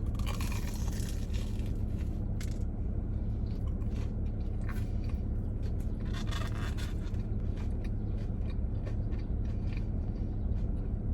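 Someone biting into and chewing a crunchy fried Korean corn dog: a loud crunchy bite at the start, another round of crunching about six seconds in, and small crunches in between. A steady low hum runs underneath.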